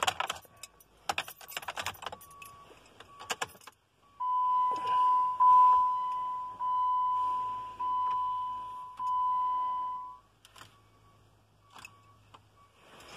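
Keys jangling at the ignition of a 2010 Jeep Compass, then a dashboard warning chime: one steady beep tone pulsing about once a second for around six seconds, followed by a few faint clicks. No starter cranking or engine is heard, in keeping with the Jeep's no-crank, no-start fault.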